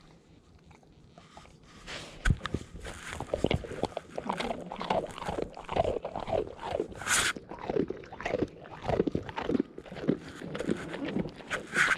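A dog crunching and chewing a hard dog biscuit, heard close up from a camera worn on the dog: quiet at first, then a rapid run of crisp crunches from about two seconds in.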